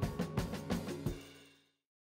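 Background music with a drum beat, fading out a little after a second in.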